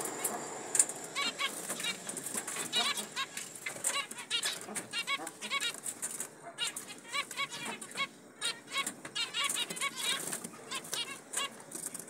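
A pair of zebra finches calling: a steady run of short, nasal, beeping calls.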